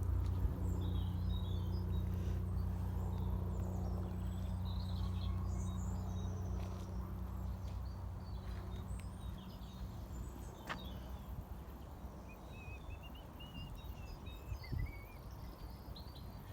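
Small birds chirping and singing in short calls, with a trill in the second half, over a low steady drone that fades away about halfway through.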